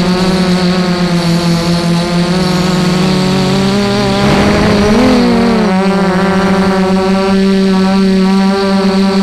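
FPV quadcopter's brushless motors and propellers whining steadily. About four to five seconds in, a throttle surge during a hard banking turn briefly raises the pitch and adds a rush of air, then the pitch drops back to a steady cruise.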